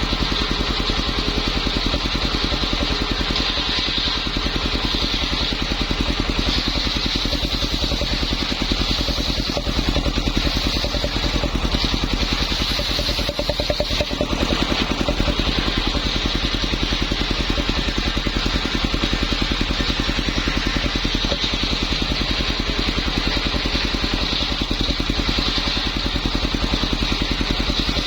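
Engine of a homemade circular saw rig running steadily, with a rapid, even beat throughout.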